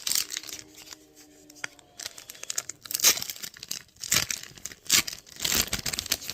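Foil Pokémon booster pack wrapper being torn open and crinkled, in several uneven bursts of tearing and rustling, the loudest about three, four and five to six seconds in.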